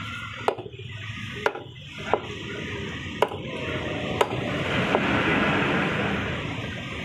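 Sharp chopping strikes, about one a second and unevenly spaced, of a blade cutting through lamb heads on a wooden chopping block. A rushing noise swells in the background during the second half.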